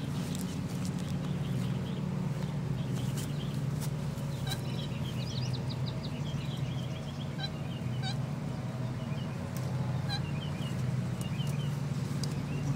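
Lawn mower engine running steadily, with small birds chirping over it now and then.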